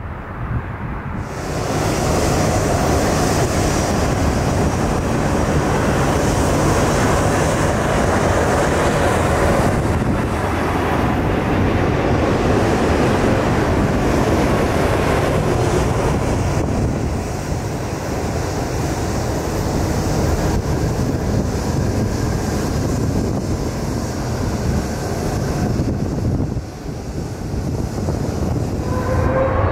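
Jet engines of a landing Boeing 747-400 freighter: a loud, steady rushing noise that sets in abruptly about a second in and eases somewhat past the halfway point.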